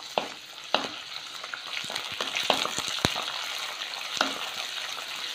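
Garlic cloves, curry leaves and a dried red chilli sizzling in hot oil in an earthenware pot as they are stirred with a wooden spoon. A steady hiss of frying is broken by a few sharp clicks and pops.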